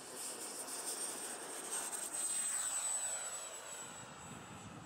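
Electric motor and pusher propeller of a 3D-printed X-UAV Mini-Talon model plane flying past: a steady high whine over a rushing noise that swells to its loudest about halfway through and then fades, the whine dropping slightly in pitch as it passes.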